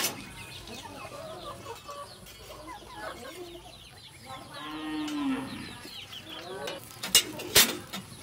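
Chickens clucking, with a longer animal call about halfway through and two sharp knocks near the end.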